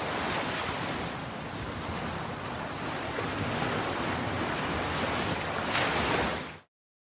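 Ocean surf washing steadily, with a wave swelling near the end before the sound cuts off suddenly.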